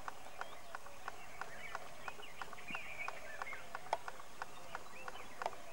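An animal's rhythmic clicking call, about three clicks a second, with faint high chirps above it and one louder click about four seconds in.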